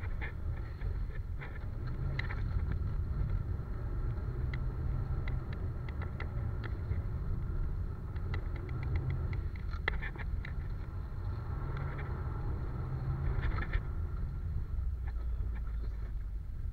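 Toyota Celica GT-Four ST205's turbocharged four-cylinder engine running as the car drives over snow, heard from inside the cabin, with many short sharp clicks and rattles over the steady rumble.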